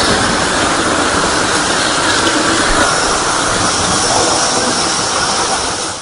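Waterfall: water falling down a rock face into a rocky pool, a loud steady rush that fades out at the very end.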